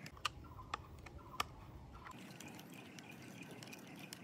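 Small screwdriver turning a screw into a plastic toy car body. There are three sharp clicks in the first second and a half, then a run of soft ticks as the screw is tightened.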